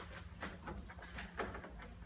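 Scattered light knocks and shuffles of children's feet and knees on a stage floor, about six in two seconds, over a steady low hum.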